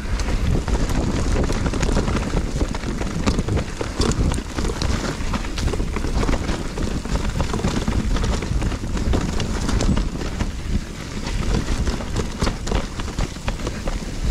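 Mountain bike rolling downhill over a wet, muddy, leaf-strewn trail: a steady rumble of tyres on the ground, with many short rattles and clicks from the bike over bumps, and wind on the microphone.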